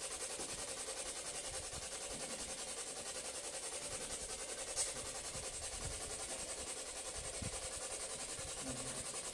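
Steady low hiss of a quiet room, with a single faint click about five seconds in.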